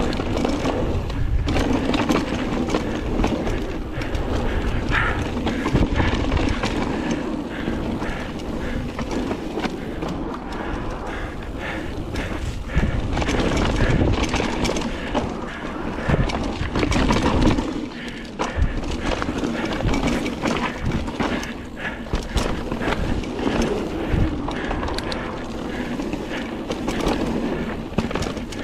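Mountain bike ridden downhill on a dirt forest trail: tyres rolling over dirt, roots and dry leaves, with the frame, chain and parts rattling and knocking continuously over the bumps.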